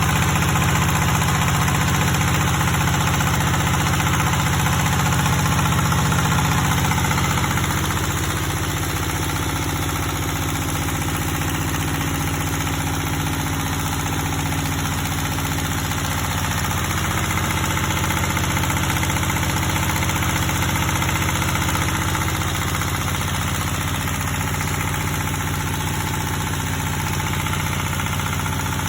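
Diesel engine running steadily, driving an animal feed pellet mill, with the level easing a little about eight seconds in.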